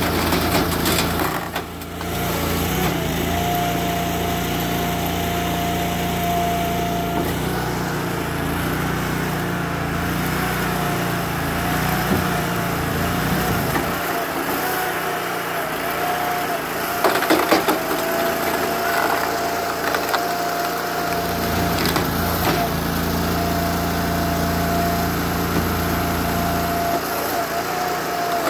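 Log splitter's 20 hp Honda engine running steadily, with a steady whine over it and a few knocks around the middle as a log is handled on the steel bed.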